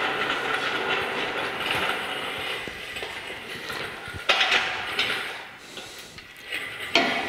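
Engine hoist carrying a milling machine head, rolling across a concrete shop floor with a steady rolling, rattling noise. Two sharp metal clanks follow, one about four seconds in and one near the end.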